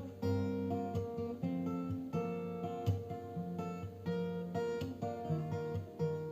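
Music played on plucked guitar over a stepping bass line.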